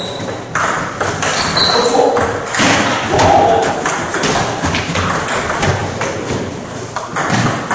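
Table tennis rally: the ball striking paddles and the table in a run of sharp clicks, with voices in the hall.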